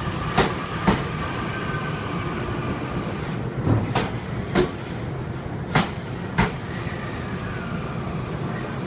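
Japanese train passing a railroad crossing: a steady rumble with wheels clacking over rail joints, mostly in pairs about half a second apart, the clacks thinning out towards the end.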